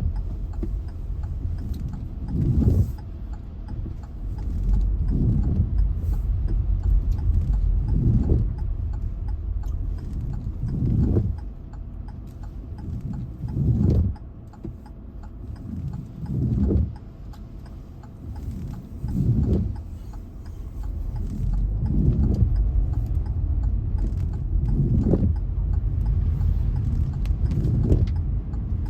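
Low rumble of a car on rain-soaked, flooded roads, with a whooshing swell about every two and a half seconds and a quieter stretch in the middle.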